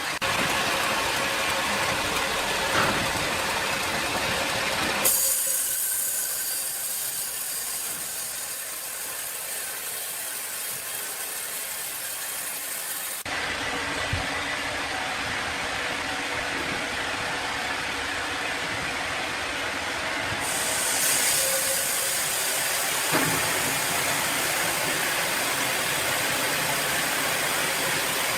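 Sawmill machinery running: a steady, hissing mechanical noise with a faint motor hum underneath, changing abruptly in character about 5, 13 and 20 seconds in.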